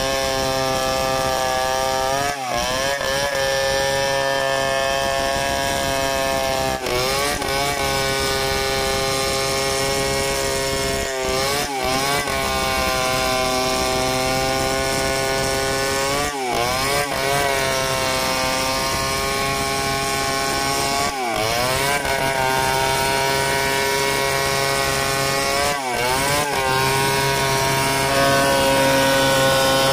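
Large Stihl chainsaw ripping lengthwise through a mahogany log in freehand milling, running at high revs under load. Its pitch dips briefly and recovers several times, and it is a little louder near the end.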